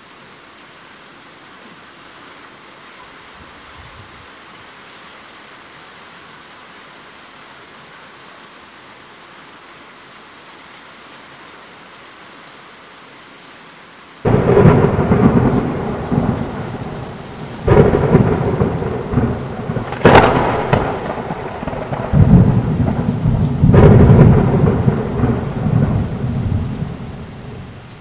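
Steady rain, then about halfway through a sudden loud thunderclap that rolls on with several more cracks and deep rumbling before dying away near the end.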